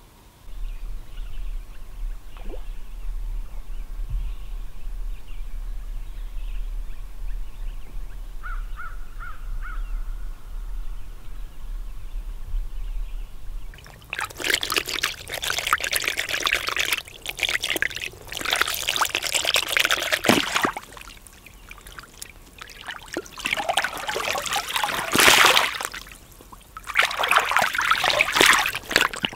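A steady low rumble for about the first half, then hands splashing and sloshing a beaver carcass in shallow water as it is washed, in several loud bursts with short pauses between them.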